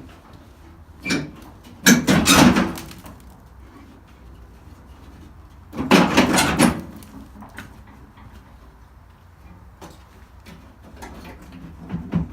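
Car body sheet metal being worked loose and handled: bursts of scraping and clattering metal, a longer one about two seconds in and another about six seconds in, with lighter knocks between.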